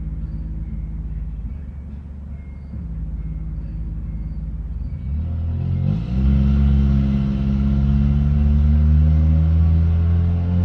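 A motor vehicle's engine running close by, rising in pitch and getting much louder about five seconds in as it accelerates, then holding a slowly climbing drone. Crickets chirp in an even pulse behind it in the first half, then are covered by the engine.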